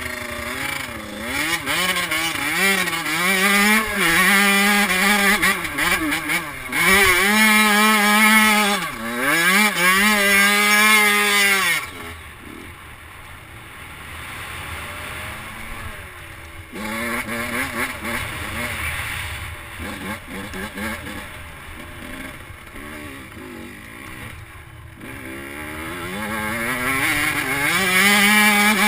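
Suzuki RM85 two-stroke dirt bike engine revving hard, its pitch climbing and dropping repeatedly for about twelve seconds, then running more quietly at lower throttle before opening up again near the end.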